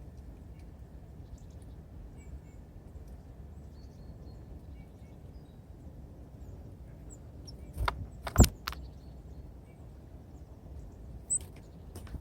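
Faint short calls of small birds at a feeder over a steady low outdoor rumble, with a quick cluster of three sharp knocks about eight seconds in and one more knock a few seconds later.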